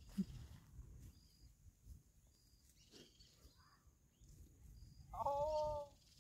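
A calf bawls once, for about a second near the end, slightly falling in pitch, as it is caught with a lasso. Faint high chirping of birds or insects runs behind it.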